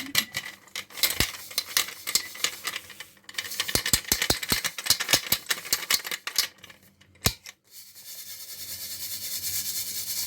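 Dry bread being broken up by hand for köfte: quick irregular crisp cracks and clicks for about seven seconds. From about eight seconds a steady rasping rub sets in and grows, as the bread is crumbled fine.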